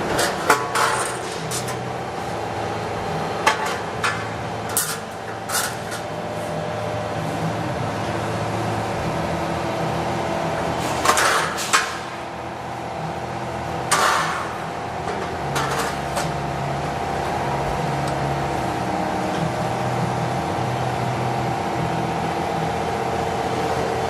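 Yeh Chiun CNC hydraulic press brake running, its hydraulic power unit giving a steady hum, with sharp metallic clanks and knocks now and then, the loudest a cluster near the middle.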